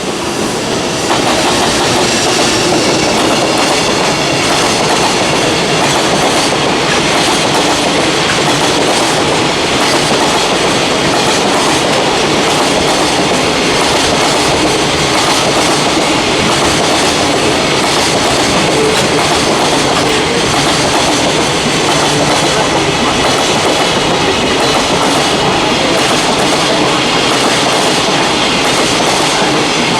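Freight train passing, its wagon wheels clicking steadily over the rail joints in a continuous loud run of noise.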